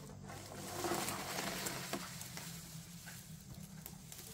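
Faint cooking sounds: a soft frying hiss, strongest in the first couple of seconds, with a few light clicks of utensils.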